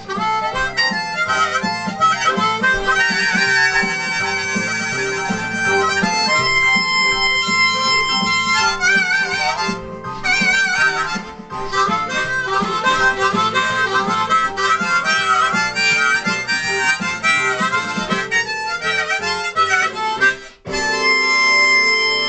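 Harmonica played with the hands cupped around it, a fast boogie tune of quick runs, chords and wavering notes. It breaks off briefly near the end, then a held chord sounds.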